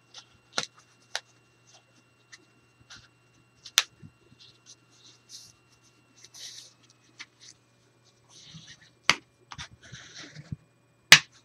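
Hands folding and rubbing down a thick, stiff paper binding piece on a tabletop: scattered sharp clicks and taps, with several short scratchy rubbing strokes as the folds are creased down.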